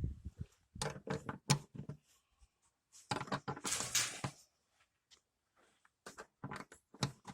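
Clicks and knocks of a wrench working the bolt of a car's door lock striker on the door pillar as it is undone, with a short scraping rustle about three to four seconds in.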